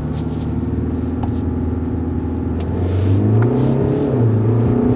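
Inside the cabin of a moving BMW 520d G30: its four-cylinder diesel engine and road rumble, growing steadily louder over the first three seconds, then holding with a wavering engine note.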